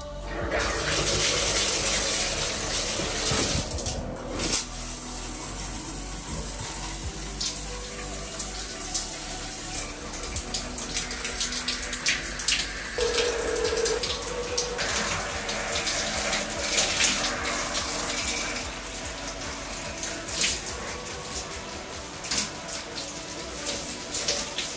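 Water running from a tap into a sink, with scattered clicks and knocks.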